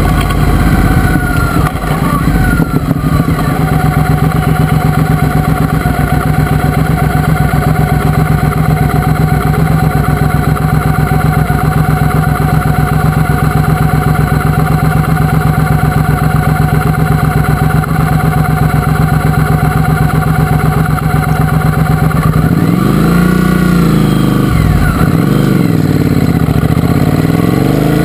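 Triumph Speedmaster's parallel-twin engine running steadily for most of the time, then, about 22 seconds in, revving up and dropping back several times as the motorcycle accelerates through the gears.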